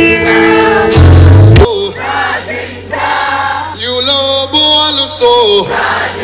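Live band with electric guitars, drums and a male singer playing loud. About a second and a half in the full band drops back, leaving singing voices over a quieter accompaniment.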